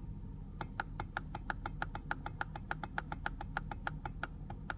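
Rapid electronic ticks from a 2005 Mercedes CLK 320's instrument cluster, about seven a second, as the clock's minutes step along with the steering-wheel button held down. They start about half a second in and stop just before the end, over a low steady hum.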